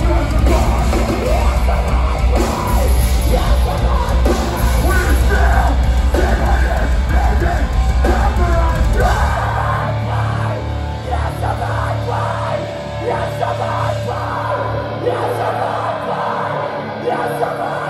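A heavy metal band playing live, loud and dense, with yelled vocals. The deep low end drops away a little past halfway while the rest of the band carries on.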